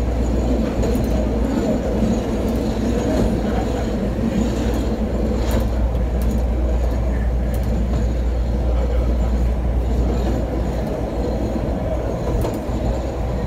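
CTA Green Line elevated train running along the track, heard from inside the car: a steady rumble with scattered sharp clicks.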